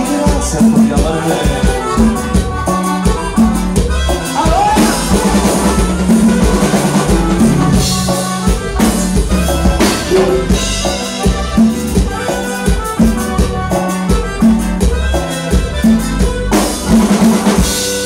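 Live norteño band music for dancing, with drums keeping a steady beat over a repeating bass line.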